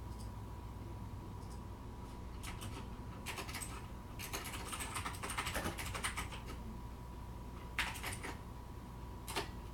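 Crinkling and rustling of the plastic wrap and cardboard of a Panini Spectra card box being unwrapped by gloved hands, in scattered bursts of crisp clicks, under a faint steady hum.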